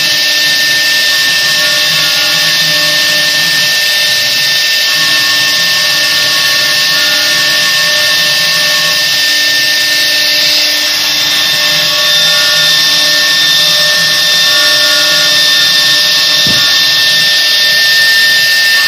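CNC router spindle running at a steady high-pitched whine as its bit engraves a board, with a hiss of cutting over it and lower hums that start and stop as the head moves.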